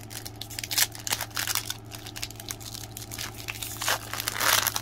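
Foil Yu-Gi-Oh! booster pack wrapper crinkling as it is handled and torn open: a run of crackles, with a longer tear about four and a half seconds in.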